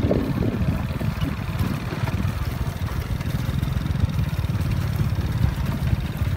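Small motorcycle engines running steadily as the bikes ride slowly over rough grass.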